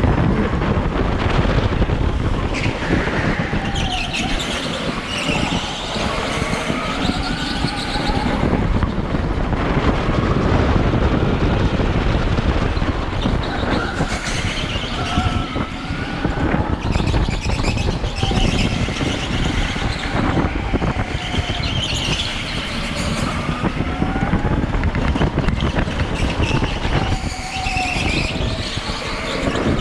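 Electric go-kart driven hard on a bumpy concrete track: a continuous rumble of the kart and its tyres over the rough surface, with short tyre squeals through the corners, several times over.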